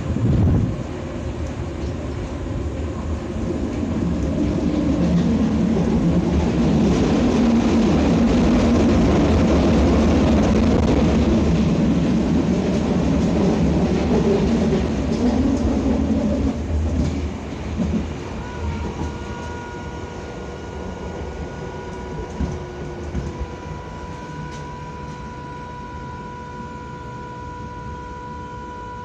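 Berlin U-Bahn F79.2 train heard from inside the carriage, with a thump at the start. Wheel and motor noise builds to its loudest over the first half, then the train slows into a station. In the second half, steady whine tones ring out over a quieter rumble.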